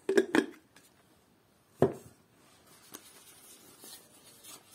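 Hard plastic parts of an electric tea maker, its power base and teapot, knocked together and set down on a table: a quick cluster of clacks at the start, one louder knock about two seconds in, then a faint tap.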